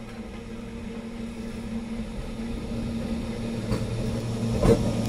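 Indian Railways electric multiple unit (EMU) train approaching and running past close by: a steady electric hum that grows louder as it nears, with a couple of sharp wheel clacks near the end.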